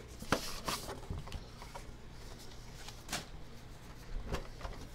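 A lidded trading-card box being handled: a few short scrapes and taps as it is turned over and its lid is worked loose.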